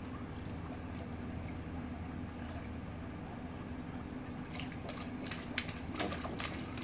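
Swimming pool water lapping and lightly splashing over a steady low hum, with a few small splashes in the second half.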